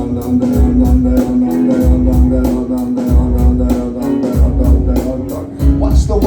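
Rock band playing live with no vocals: a held note over a steady beat of about four strokes a second and recurring low bass pulses, changing near the end.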